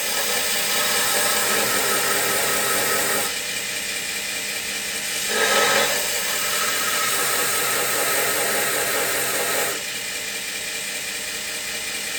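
2x72 belt grinder running, its abrasive belt grinding steel with a steady, loud hiss that steps louder and softer several times, with a brief surge about five and a half seconds in.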